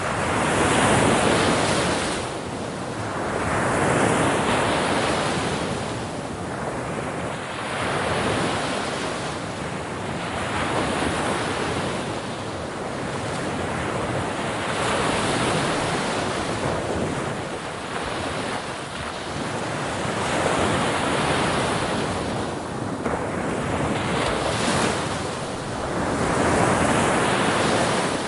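Ocean waves breaking on a shore, one surge of rushing noise after another, each swelling and then washing back, about every three to four seconds.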